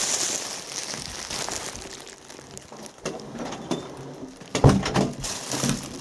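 Plastic carrier bag crinkling and rustling as it is carried, with handling noise and a louder thump about two-thirds of the way through.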